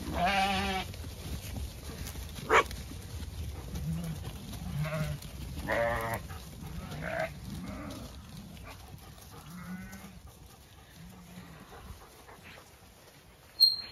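Zwartbles ewes bleating several times as the flock moves along, the first bleat the loudest, with a few shorter low calls in between. A sharp click sounds about two and a half seconds in, and a brief high squeak near the end.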